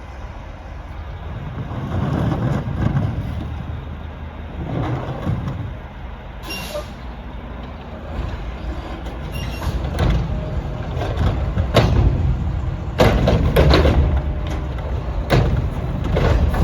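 Garbage truck running, with a steady low engine rumble and a series of short, sharp noises that come thicker in the second half.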